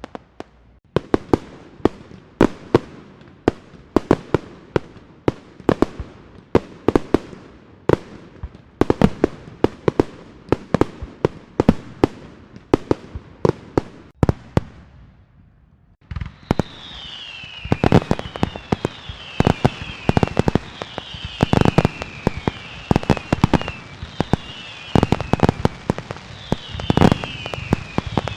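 Fireworks and firecrackers going off in rapid, irregular strings of sharp bangs and crackles. After a short lull a bit past halfway, a steady hiss sets in under the bangs, with falling whistles repeating about every second and a few heavier booms.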